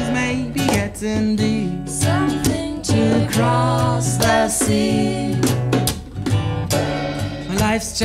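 Acoustic guitar strumming together with hand-played bongos.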